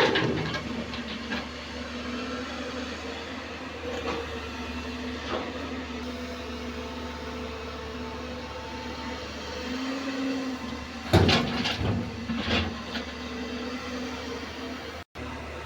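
JCB NXT 205 excavator's diesel engine running steadily under work, with occasional metallic clanks and knocks from the machine. The loudest come about 11 and 12.5 seconds in.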